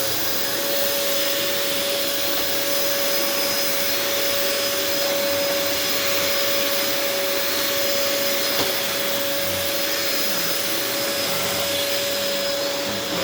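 Hoover WindTunnel Air bagless canister vacuum running steadily on carpet with its brush setting on: a steady whine over an even rushing of air.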